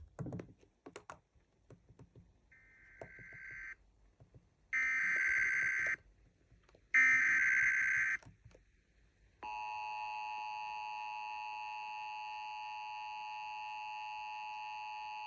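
Emergency Alert System SAME header: three harsh digital data bursts of about a second each, then the steady EAS attention tone starting about nine seconds in, announcing a new warning.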